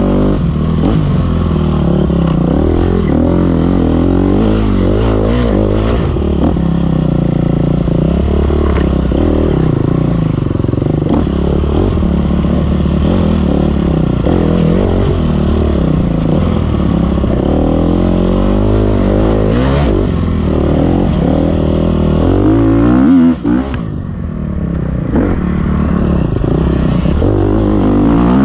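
2012 KTM 250 XC-F's freshly rebuilt single-cylinder four-stroke engine being ridden, revving up and easing off again and again as the rider works the throttle. About three-quarters of the way through the engine note spikes, drops off sharply, then builds back up.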